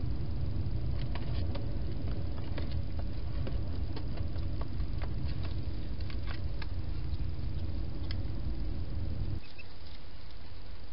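Irregular small clicks and rustles of a wild hedgehog feeding and moving about at a feeding box, over a steady low rumble that drops off suddenly about nine seconds in.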